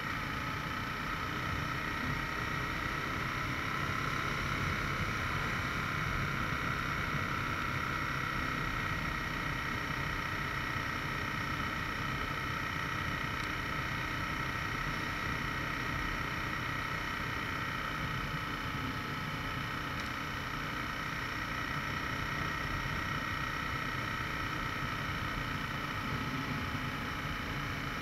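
Aprilia RSV 1000 R's V-twin engine running steadily while the motorcycle is ridden along the road, with wind rush over the bike and microphone.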